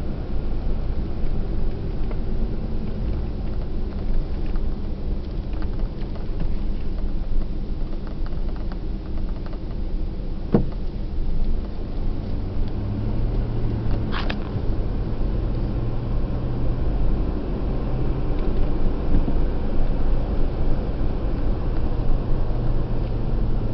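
A car's engine and tyre noise heard inside the cabin while driving at road speed: a steady low rumble, with a low engine hum that grows stronger about halfway. Two short clicks stand out, about ten and fourteen seconds in.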